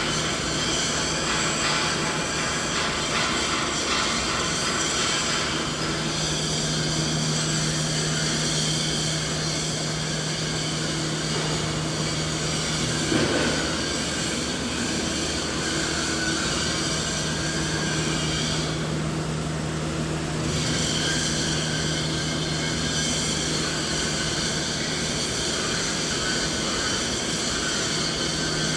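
Steady machinery noise: a constant hum with a strong low tone under an even rushing noise, with a brief louder blip about 13 seconds in and the highest hiss briefly dropping away around 19 to 20 seconds.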